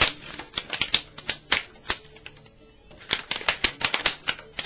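Banjo head being pulled and pressed by hand to open up folds before tensioning: a run of irregular sharp clicks and crackles, with a short lull a little past the middle.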